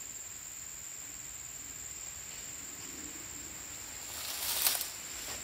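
A steady, high-pitched insect drone, with a brief crackling rustle of dry palm fronds about four and a half seconds in.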